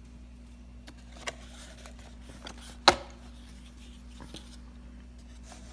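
A camera box and its packaging being handled: light rustling with a few clicks and taps, the loudest a single sharp knock about three seconds in.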